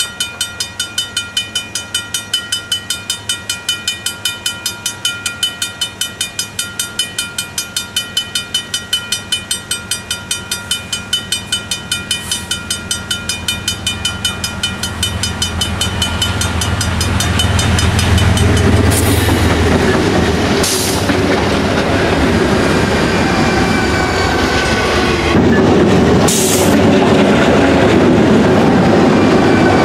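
A crossing bell ringing evenly at about four strokes a second while a diesel freight train approaches. The locomotives' low engine rumble swells from about halfway, and as the lead units of GE ES44DC and GP38-2W diesels pass close by, their engine and wheel noise drowns out the bell, with a few short hisses.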